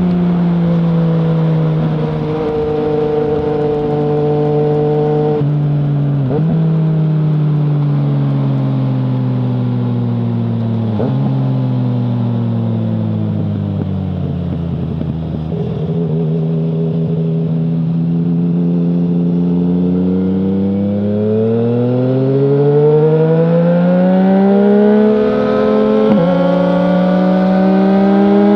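2020 Yamaha MT-09's three-cylinder engine through an Akrapovic full exhaust with no dB killer, under way: it holds a steady pitch with a couple of quick gear changes, falls in pitch for several seconds as it slows, then climbs again in a long acceleration with one more gear change near the end.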